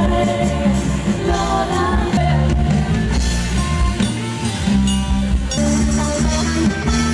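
A live pop-rock band playing: a woman singing into a microphone over electric guitars, keyboard and a bass line.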